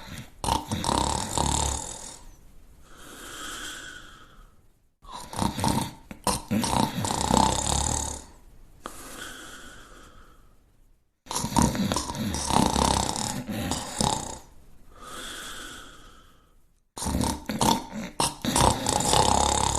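A sleeping person snoring: four long, rattling snores about six seconds apart. Each is followed by a softer breath with a whistling tone and a short pause.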